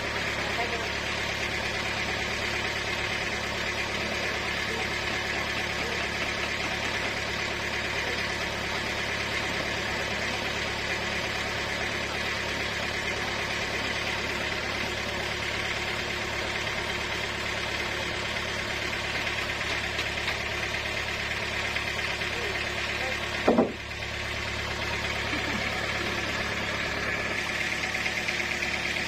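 Sawmill machinery running steadily with a constant motor hum, broken once by a short loud knock about three-quarters of the way through.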